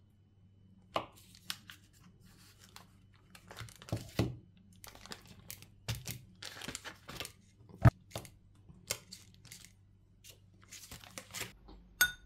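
Butter's paper wrapper crinkling and rustling as a block of butter is cut with a knife and lifted off the paper, with one sharp knock about eight seconds in. A spoon clinks briefly against a ceramic bowl at the very end.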